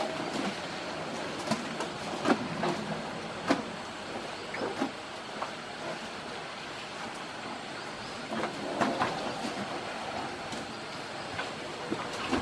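Asian elephants feeding on bananas and pieces of banana plant: irregular crunches, knocks and rustles as their trunks scoop up the food and they chew, over a steady hiss.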